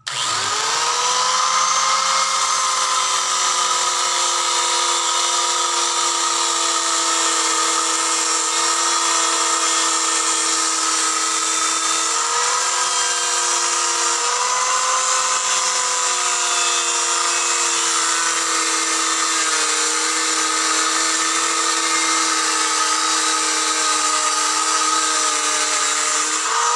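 Handheld electric angle grinder fitted with a sanding disc, switched on and spinning up to a steady high whine, then running continuously while sanding wood. Its pitch sags slightly now and then as the disc is pressed into the wood.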